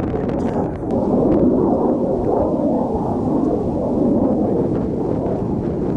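F/A-18 Hornet's jet engines roaring in a flypast: a steady, loud, low rumble with a faint crackle in the first second.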